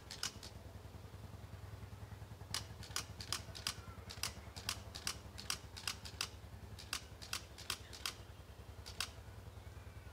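A lighter clicked over and over to light birthday candles: sharp clicks, often in quick pairs, a few times a second with short pauses, the candles not catching. A steady low rumble runs underneath.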